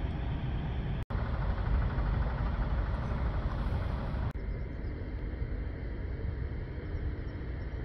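Steady outdoor rumble and hiss, heaviest in the low end, with no distinct engine note or speech. It cuts out for a moment about a second in and turns duller and quieter about four seconds in.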